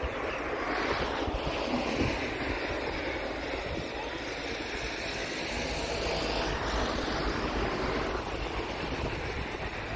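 Wind rushing over the microphone, with the distant steady whine of an Airbus A380's jet engines at taxi power beneath it.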